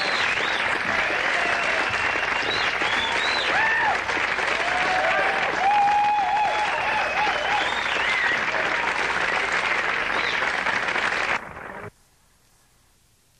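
Live concert audience applauding, cheering and whistling. The sound cuts off suddenly near the end, leaving near silence.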